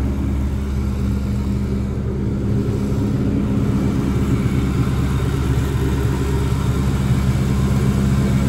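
Freightliner FLD semi truck's diesel engine idling steadily.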